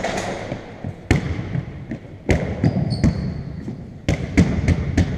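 Basketball bouncing on the wooden floor of a large sports hall, each bounce echoing: single bounces a second or two apart, then quick dribbling near the end.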